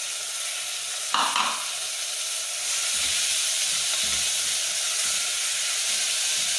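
Chopped tomatoes frying with onions in hot oil in a stainless steel pot, sizzling steadily as a wooden spoon stirs them. A brief knock about a second in, and the sizzle grows louder after a few seconds.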